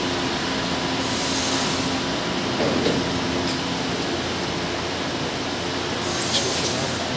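São Paulo Metro train at an underground platform, its steady running hum filling the station, with two short bursts of air hiss, about a second in and again near the end.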